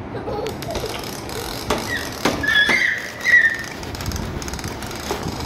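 Hard plastic toys clicking and knocking on a tiled floor, with a few short high squeaks in the middle.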